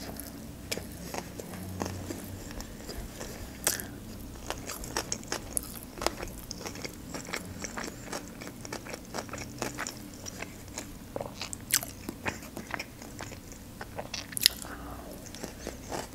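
Close-miked chewing of a shrimp California roll coated in fish roe: a steady run of small wet clicks and crunches, with a few louder ones scattered through.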